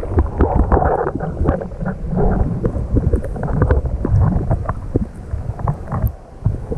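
Wind buffeting the camera's microphone in an irregular low rumble, with many short knocks from the camera being handled and swung around.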